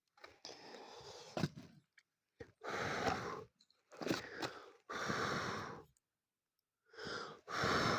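A person blowing out hard, about six long rushes of breath of up to a second and a half each, with short pauses between them.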